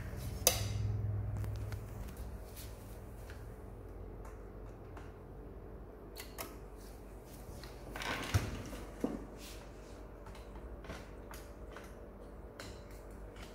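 Workbench room tone with a low steady hum, broken by scattered small clicks and knocks of handling. There is a thump about half a second in and a louder knock about eight seconds in.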